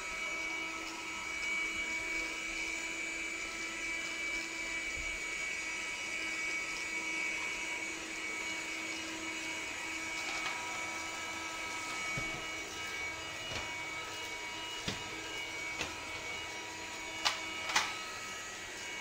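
ELUXGO EC19C cordless vacuum cleaner's motor running with a steady high whine. Two sharp clicks come close together near the end.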